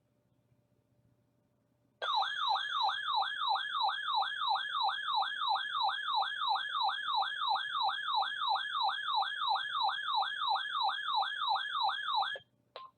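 Emergency weather alert tone: a loud siren-like warble sweeping up and down about three times a second, starting about two seconds in and cutting off abruptly shortly before the end.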